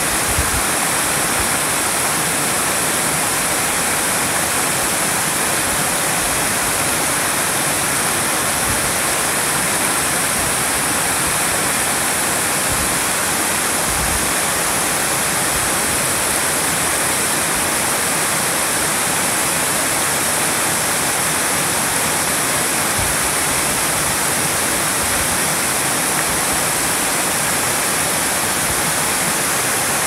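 Water pouring over a stone weir in steady cascades, with a waterfall behind: an even, unbroken rush of falling water.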